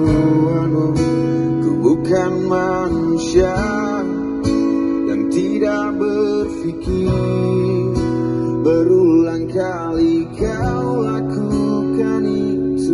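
Acoustic guitar strummed with a man singing over it, a slow acoustic song.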